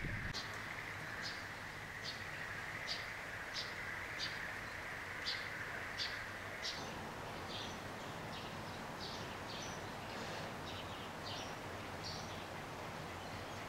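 A small bird chirping over and over, short high notes about once or twice a second, over a steady outdoor background hiss that drops away about seven seconds in.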